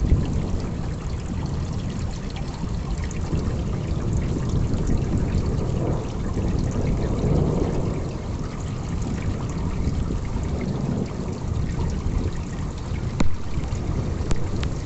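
Steady heavy rain with water trickling and running off, and a low rumble swelling about six seconds in. A single sharp tick near the end.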